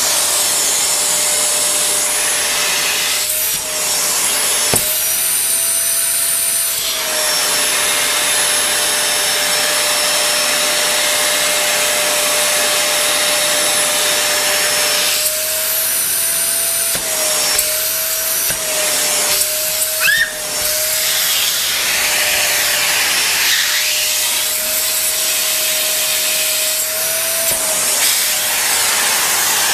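Vacuum cleaner running steadily on a sofa. Its motor hum wavers slightly in pitch, and the suction sound changes several times as the nozzle moves over the upholstery.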